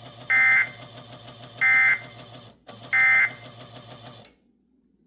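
Weather radio sending the EAS end-of-message code: three short two-tone digital data bursts about 1.3 seconds apart, marking the end of the alert. Under them runs a low rhythmic machine sound from the alert printer, which stops together with the radio about four seconds in.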